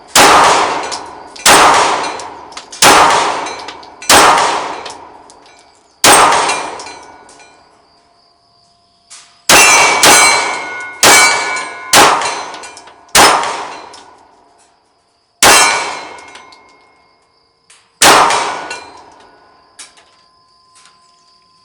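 Steel gong target ringing as 9 mm pistol rounds hit it. There are about a dozen sharp clangs, each ringing out and fading over a second or so, with a quicker run of five hits near the middle.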